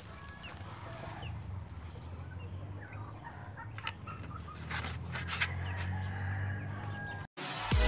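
A flock of young chickens clucking softly, with scattered short calls and a few light clicks among them. Electronic music cuts in abruptly near the end.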